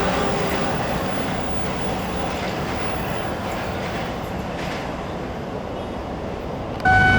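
Train running past on the rails, a steady rumble of wheels that slowly fades. Just before the end a louder sound with steady tones cuts in abruptly.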